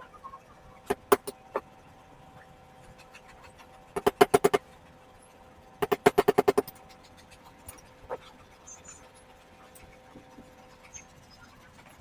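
Light metal-on-metal tapping: a few single knocks, then two quick runs of ringing taps, about six and nine strikes, then one more knock. A faint steady hum runs underneath and stops near the end.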